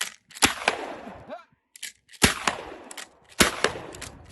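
Winchester Model 1897 pump-action shotgun slam-firing: three shots about a second and a half apart, each with a trailing echo. Between shots the pump action clacks as it is racked; with the trigger held back, the gun fires each time the action closes.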